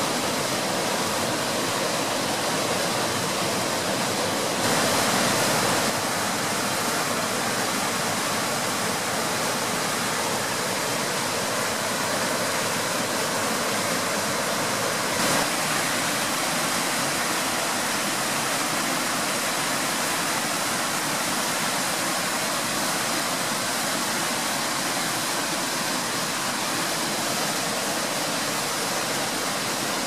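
Steady rush of a small waterfall, a stream pouring over rock ledges into white water. It gets slightly louder for a second or so about five seconds in.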